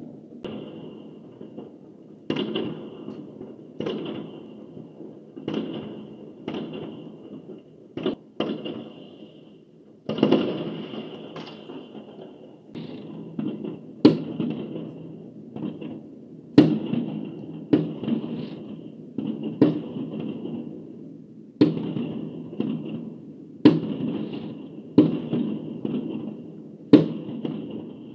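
Aerial fireworks going off in a steady string: about twenty sharp bangs, roughly one every second or two, each trailing off and followed by a short crackle from the burst.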